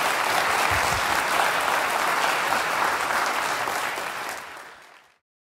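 A large audience applauding steadily after a talk; the clapping fades out about five seconds in.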